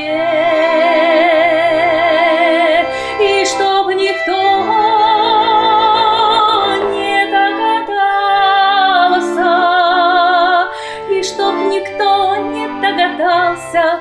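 A woman singing a Russian song in a trained folk style with wide vibrato, holding long notes, accompanied by a bayan (button accordion) playing chords and steady bass notes.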